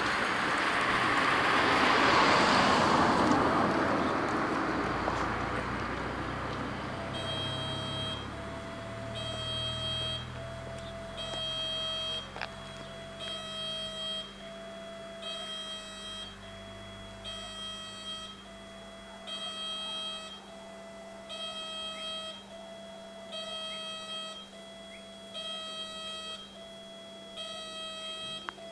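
A car drives over the level crossing, its noise fading over the first few seconds. About seven seconds in, the crossing's electronic warning bell starts: a ringing tone pulsing about every second and a half, warning that a train is coming and the barriers are about to lower.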